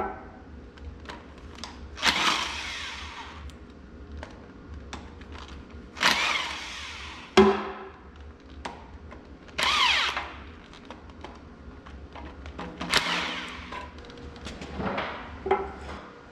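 Heavy metal clunks and scraping, ringing noises from a bare Oliver 1600 tractor engine block being worked on an engine stand, coming about every three to four seconds with a couple of sharp knocks between, over a steady low hum.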